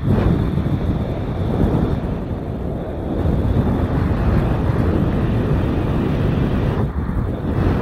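Wind rushing over the microphone of a head-mounted camera under an open parachute canopy during descent: a steady low rumble of noise with no clear tones.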